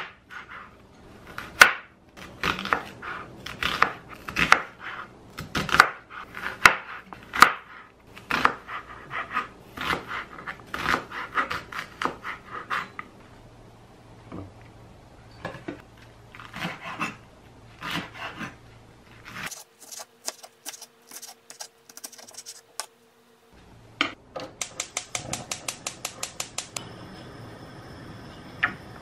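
Chef's knife chopping an onion on a plastic cutting board, a long run of sharp knocks on the board. Near the end a gas hob's spark igniter clicks rapidly, about five clicks a second, for a couple of seconds as the burner is lit.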